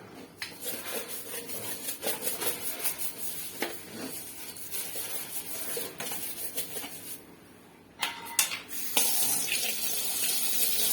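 Household cleaning with water: splashing and running water with scattered knocks and clatter, then a steady rush of water from a tap over the last couple of seconds.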